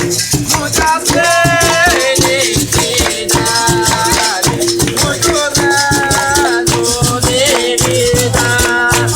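Capoeira music: a berimbau plays a repeating note with the caxixi rattle shaking in rhythm, while a voice sings over it.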